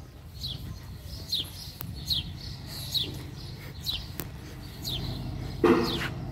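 A small bird calling, a short falling high chirp repeated about once a second, over a steady low hum. Near the end comes a brief, louder voice-like sound.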